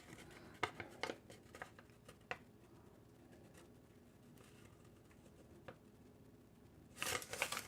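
Faint clicks and rustling of small objects being handled by hand, a few sharp clicks early, then a quiet stretch and a denser rustle near the end.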